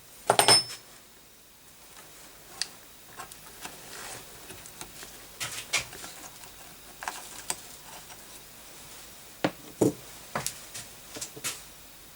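Irregular light clicks, knocks and small metallic clinks of computer hardware being handled on a workbench, the loudest a ringing clink about half a second in.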